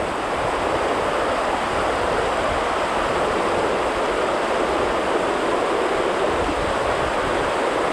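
River rapids rushing over rocks: steady white-water noise with no change throughout.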